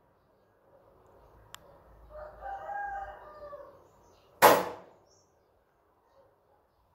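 A rooster crows faintly in the background for about a second and a half. Then comes a single sharp, loud bang with a short rattle from the rabbits' wire-mesh cage.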